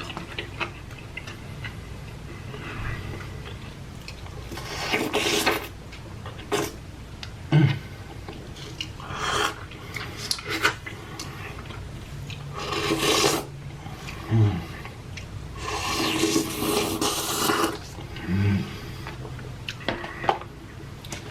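A person eating close to the microphone: chewing and mouth sounds, broken by several bursts of rustling and scraping. The food is fried cheese curds dipped in ranch.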